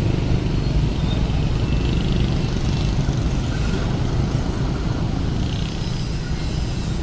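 A slow-moving train on a workshop siding: a steady low rumble of the locomotive's diesel engine and the coach's wheels on the rails.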